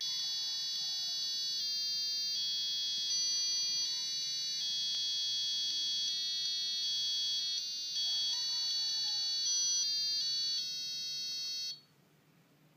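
Piezo buzzer disc playing a melody, one high-pitched, buzzy electronic beep-tone after another at about two notes a second with uneven note lengths, then stopping abruptly near the end.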